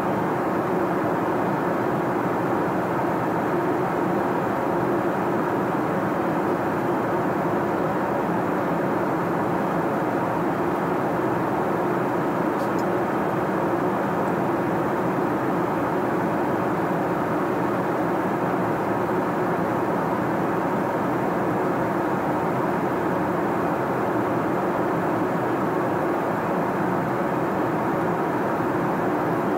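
Steady in-flight cabin noise of an Airbus A380 airliner: an even rush of airflow and engine noise with faint steady hums in it, unchanging throughout.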